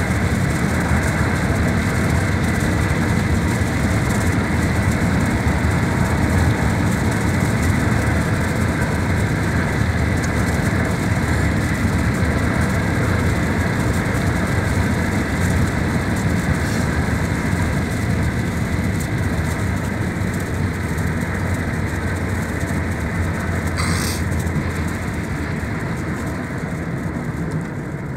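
Steady engine and tyre noise heard from inside the cab of a vehicle driving along a paved highway, easing a little toward the end. A brief hiss sounds near the end.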